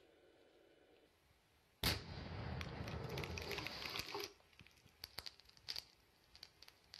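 Controlled detonation of a roadside bomb (IED) by bomb-disposal experts: a sudden heavy blast about two seconds in, rumbling on for about two seconds, followed by a scatter of sharp ticks and clicks.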